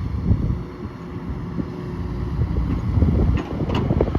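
XCMG XE210CU excavator's Cummins diesel engine running, an uneven low rumble that grows a little louder about three seconds in, with wind noise on the microphone.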